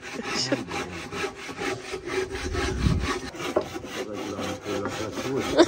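Hand saw cutting with rapid, even back-and-forth strokes.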